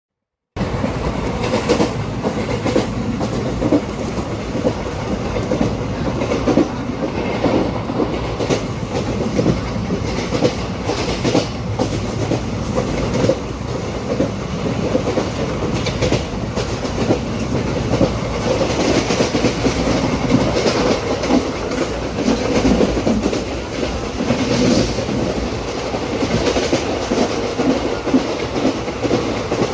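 Train running along the track: a steady rumble with irregular clattering of the wheels over the rails.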